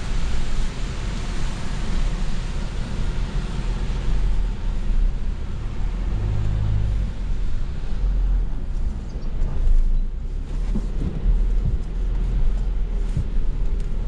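A 4WD driving on soft beach sand, heard from inside the cabin: a steady low engine and tyre rumble with a rushing noise over it. The rushing eases in the second half as the vehicle slows.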